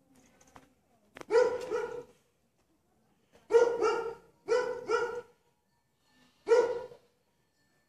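A dog barking in four short bouts, most of them two quick barks together, with pauses between them.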